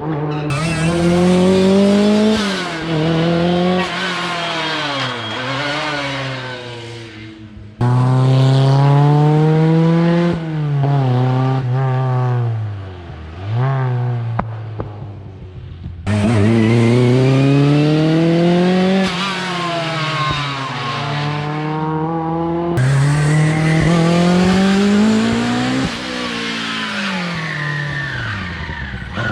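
Rally cars on a special stage accelerating hard and shifting up, the engine pitch climbing and dropping with each gear change, then lifting off and pulling away again. Several cars follow one another with abrupt changes about 8, 16 and 23 seconds in.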